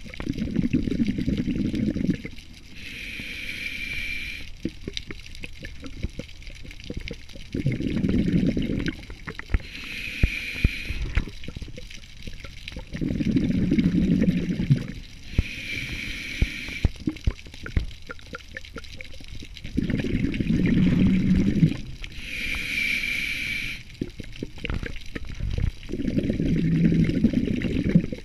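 Scuba diver breathing through a regulator, a steady cycle about every six to seven seconds. Each short inhalation hisses with a whistling tone, and each longer exhalation gives a low bubbling rumble. Five exhalations and four inhalations are heard, with scattered sharp clicks between them.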